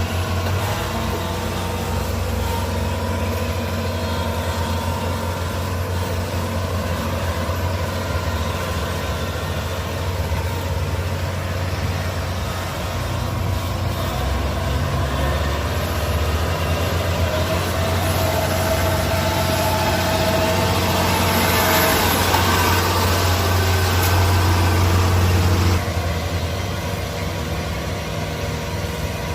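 Kubota DC-70 Plus rice combine harvester running, a steady low engine drone with machinery noise over it. It grows a little louder in the later part, then drops suddenly a few seconds before the end.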